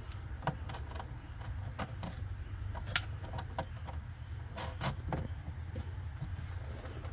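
Light metallic clicks and clinks as a small nut is handled and threaded by hand onto a LiFePO4 battery's terminal stud, the sharpest click about three seconds in. A steady low hum runs underneath.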